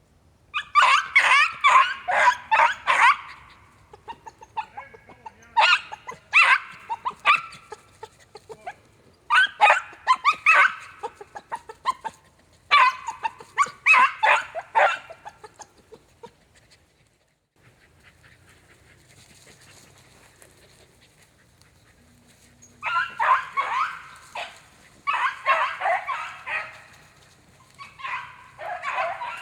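A pack of beagles baying on a rabbit's trail: bursts of quick, repeated yelping cries a few seconds long, several dogs at once. About halfway through they go quiet for several seconds, then the baying starts up again.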